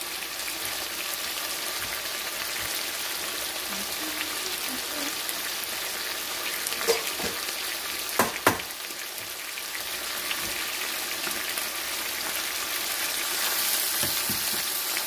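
Chicken pieces searing in hot oil in a skillet under a mesh splatter screen: a steady sizzle, with a few sharp clicks about seven and eight seconds in. The sizzle gets louder near the end as the screen comes off and tongs turn the pieces.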